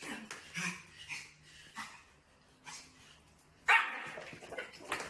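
Small puppy yapping: a string of short, sharp barks at uneven intervals, the loudest about three-quarters of the way through.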